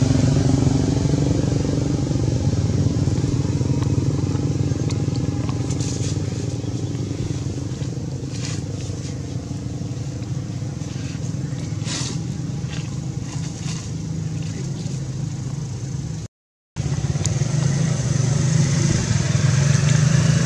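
A steady low engine drone, like a small motor vehicle running nearby, with a few faint taps; the sound drops out completely for a moment about 16 seconds in.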